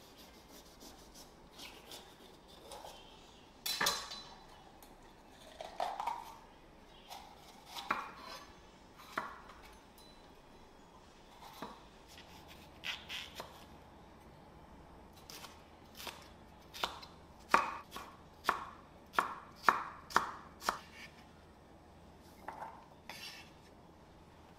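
Knife chopping food on a cutting board in separate, irregular strokes, with a quicker run of chops about two thirds of the way in.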